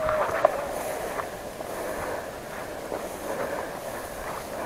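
Grass and brush rustling against clothing and gear as a player moves through tall vegetation, with a few faint small clicks.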